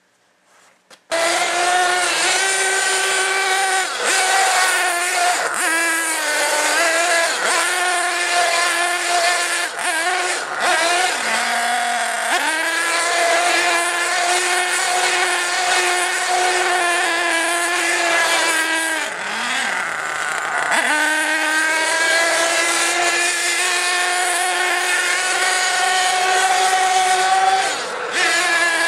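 Nitro Star F4.6 two-stroke glow engine of a 1/8-scale HPI Nitro Trophy 4.6 truggy running at high revs as the car is driven hard, the throttle eased and reopened so the pitch dips and climbs again; it comes in about a second in.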